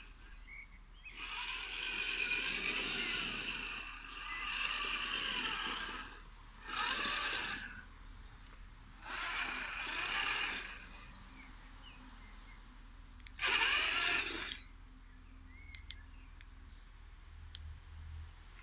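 Savage 8x8 RC truck's electric motors and gear drivetrain whirring in about five bursts of throttle, each a second or so to three seconds long, the pitch rising and falling with each burst and quieter gaps between.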